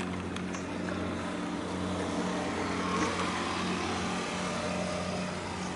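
Steady low drone of a boat's diesel engine, holding an even pitch, over a constant hiss of water and wind.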